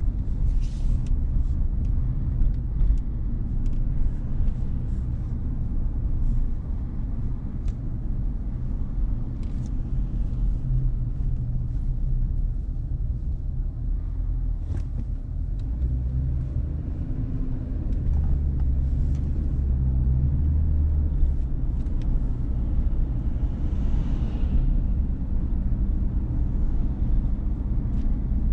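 Steady low rumble of a car being driven on city streets: engine and tyre noise. There are a few light clicks, and a short swell of higher noise near the end.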